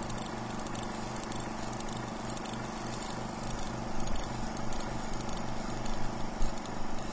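End-credits music: sustained chords over a repeating low pulse, with sharper beats joining about four seconds in.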